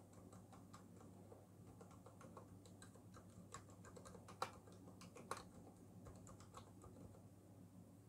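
Typing on a Ducky One 2 Mini 60% mechanical keyboard: a faint, quick run of key clicks, with two louder key strikes a little past the middle, over a low steady hum.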